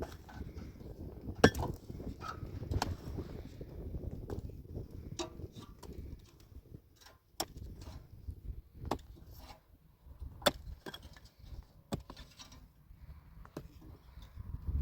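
Scattered sharp knocks and clicks at uneven intervals, about eight in all, the loudest about a second and a half in, over a low steady rumble.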